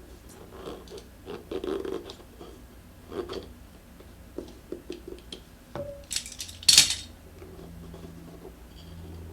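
Hand work on a scooter tire and rim: scattered clicks, scrapes and metal tool clinks, with one sharp metallic clatter a little under seven seconds in.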